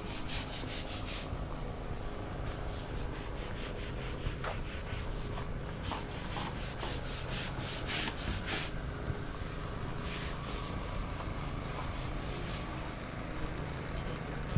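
A long-handled scrubbing brush working soapy stone paving in quick back-and-forth strokes, about five or six a second, in runs of a few seconds with short pauses between them.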